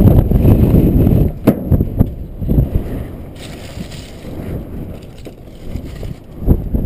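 Strong dust-storm wind buffeting the microphone in gusts, a rough low rumble that is loud for the first couple of seconds, eases off in the middle and surges again near the end, with a few sharp knocks.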